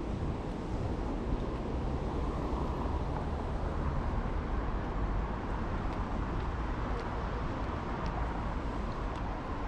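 Steady night-time city street ambience: an even low rumble with a hiss of distant traffic, and a few faint ticks about seven and eight seconds in.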